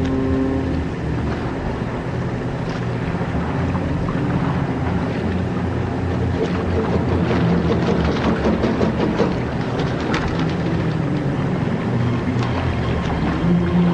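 Water sloshing and scattered paddle splashes and knocks around an inflatable boat being paddled, over a steady low drone.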